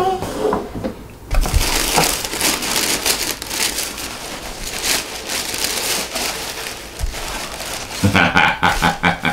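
Tissue paper crinkling and rustling as hands dig through a shoebox and pull out a wrapped sneaker, a dense crackle of many small crisp clicks. A man's brief wordless vocal sound comes in near the end.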